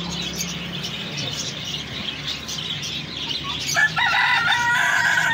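Polish rooster crowing once, a loud call of about two seconds starting a little before the end, over faint repeated high chirping.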